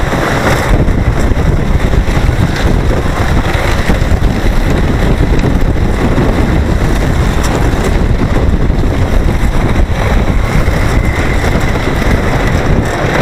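Wooden roller coaster train running fast along its track: a steady low rumble with wind rushing over the microphone.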